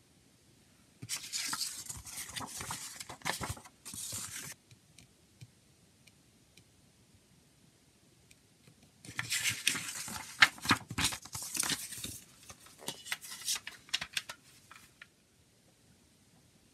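Paper CD booklet being handled and its pages turned, rustling and crinkling in two bursts: a short one about a second in and a longer one from about nine to fifteen seconds in, full of sharp clicks.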